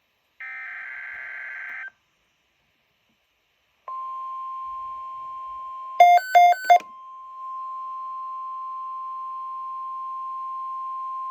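NOAA Weather Radio Emergency Alert System tones. The last burst of the SAME digital header, a buzzy data screech of about a second and a half, is followed by a pause, and then the steady single-pitch warning alarm tone starts about four seconds in and holds. About six seconds in, three loud quick beeps sound over the tone.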